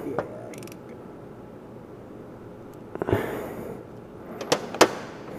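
Workshop handling noises from tools and metal parts at a motorcycle stator being worked on: two quick clicks at the start, a short scraping rustle about three seconds in, then two sharp metallic clicks about a third of a second apart near the end.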